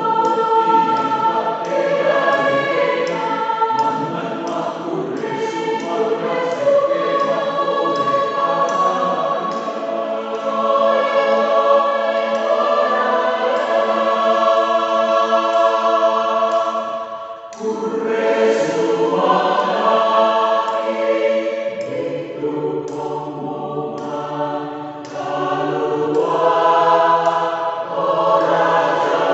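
Mixed choir of men and women singing a song in parts at rehearsal. The singing breaks off briefly a little past halfway, and low men's voices come in strongly after it.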